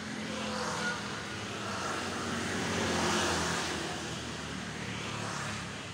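A motor vehicle passing by, its engine noise swelling to a peak about halfway through and then fading.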